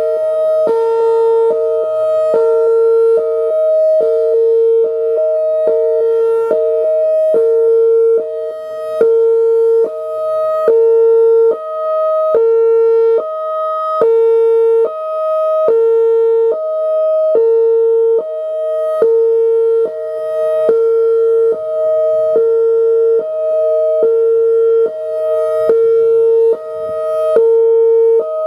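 Whelen Vortex R4 electronic outdoor warning siren sounding its Hi-Lo signal: a high and a low tone alternating, switching just under once a second.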